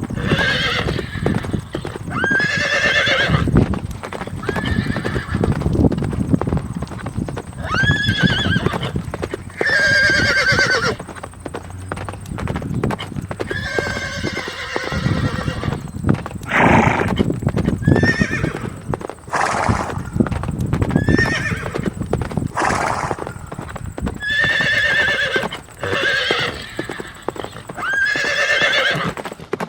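Horses neighing again and again, about a dozen calls of roughly a second each, over a steady clatter of hooves. Two short breathy blasts come near the middle.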